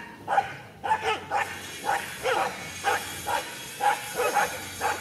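Dogs barking in short, sharp calls, about two a second, some dropping in pitch, as they scuffle and wrestle.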